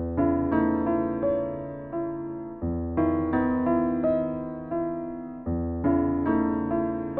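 Background music: a slow, gentle electric piano tune, notes struck and fading, with a low bass note about every three seconds.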